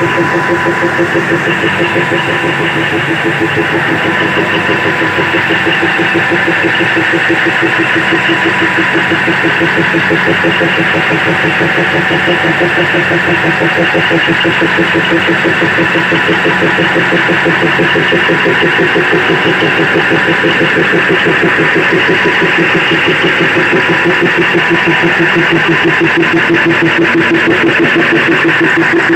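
Diesel locomotive engine running steadily at close range inside the engine compartment: a loud, even, rapid pulsing drone with no change in speed.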